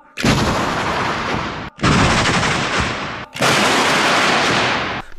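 Giant balloons bursting as arrows hit them in a large indoor arena: three loud bangs about a second and a half apart, each trailing off in a long, echoing rush.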